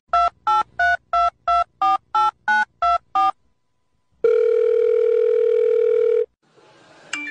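Telephone keypad dialing: ten quick touch-tone beeps, about three a second, each a two-pitch tone, then about two seconds of a steady ringing tone on the line.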